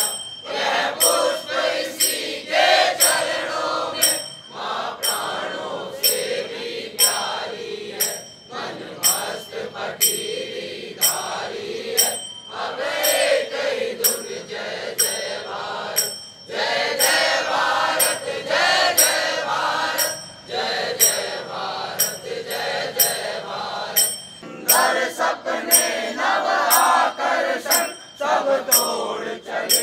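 A group of men singing a Hindi patriotic song together in unison, kept in time by a regular sharp beat of clicks or clinks, a little under two a second.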